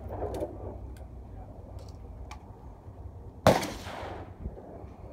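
A single shotgun shot at a clay target about three and a half seconds in, its sound trailing off over about a second.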